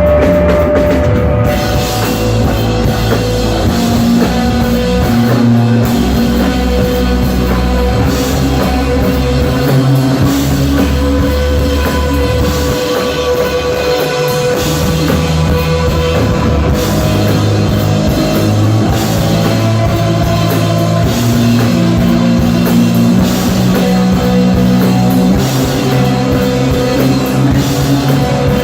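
Rock band playing: drum kit, bass guitar holding long low notes that change every second or two, and electric guitar.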